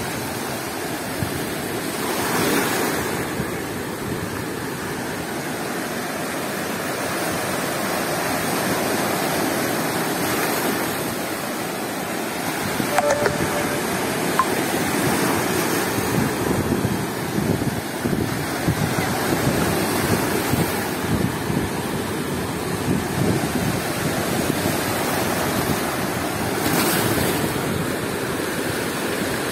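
Storm surf: waves breaking and foaming water washing over rocks and stones at the shoreline, a continuous rushing with heavier crashes about two seconds in and near the end.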